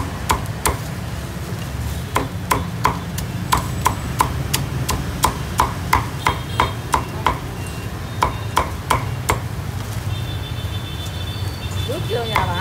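Cleaver chopping crispy roast pork on a thick wooden chopping block: sharp knocks at an uneven pace, about two to three a second in runs, stopping a few seconds before the end. A steady low hum underneath.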